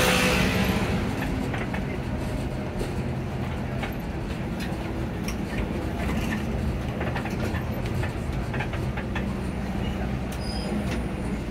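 Bus engine running steadily with road noise, heard from inside the cabin, with scattered small clicks and rattles from the interior. A louder rush of noise at the start fades within about a second.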